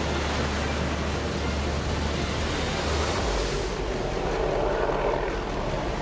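Giant ocean wave breaking: a steady, dense roar of surf and whitewater, with a low steady hum underneath that shifts pitch about three seconds in.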